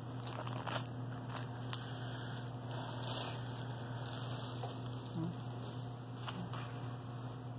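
A long packaging sleeve rustles and crinkles as a rolled diamond-painting canvas is slid out of it and laid on a wooden table, with a few light taps. A steady low hum lies underneath.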